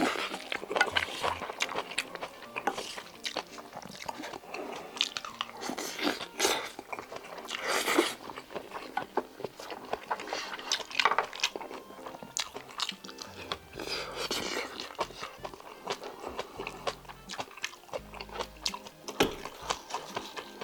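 Close-miked chewing and mouth sounds of someone eating octopus bibimbap, with many irregular wet clicks and crunches.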